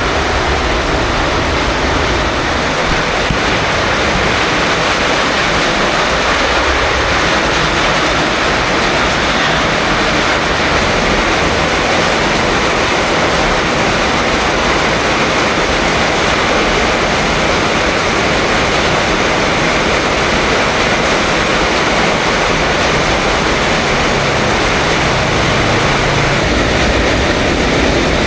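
Heavy rain falling steadily, a loud continuous hiss with no letup.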